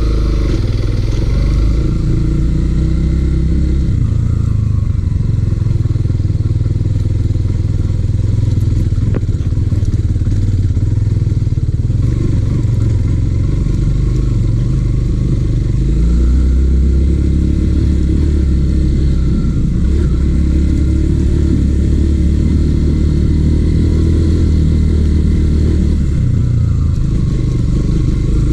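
Yamaha XTZ150 single-cylinder four-stroke motorcycle engine running. The engine speed rises and falls several times.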